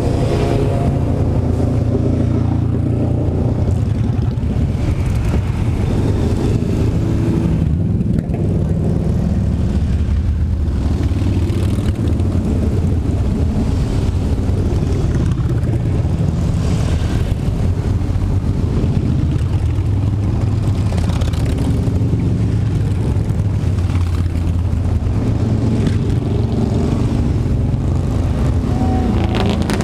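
A procession of motorcycles, sport bikes and cruisers, riding slowly past one after another with engines running steadily. Individual bikes swell louder as they pass close by, several times over.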